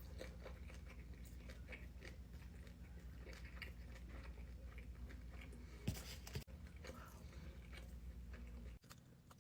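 Faint chewing of a mouthful of egg foo young, sausage and rice: soft wet clicks and smacks of the mouth, one sharper click about six seconds in. A steady low hum lies under it and cuts off near the end.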